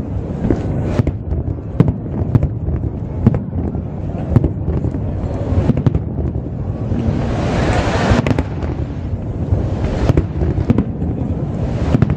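Aerial firework shells bursting in a steady barrage: many sharp bangs over a continuous low rumble, with a hissing crackle that swells about seven seconds in and fades again.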